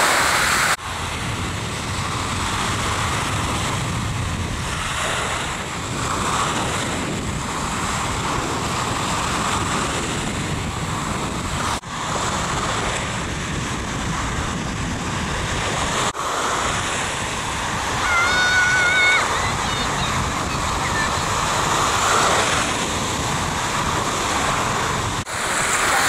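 Small Black Sea waves washing in over a sandy shore, a steady rush of surf mixed with wind buffeting the microphone. The sound breaks off abruptly a few times, and a brief high wavering call is heard about 18 seconds in.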